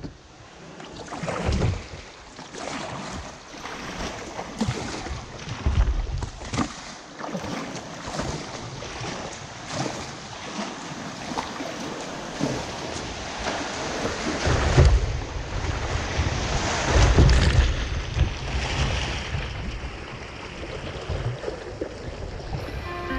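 Water rushing and splashing around a moving kayak on a fast, shallow stretch of river, in irregular splashes over a steady wash. Low gusts of wind buffet the microphone several times.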